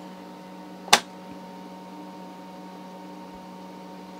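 One sharp click about a second in, a range push-button on the vintage signal generator's front panel being pressed. Under it runs a steady electrical hum made of several steady tones.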